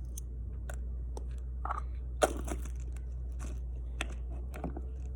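Gas blowback airsoft pistol being fired: one sharp pop about two seconds in, with a few fainter clicks before and after, over a steady low hum.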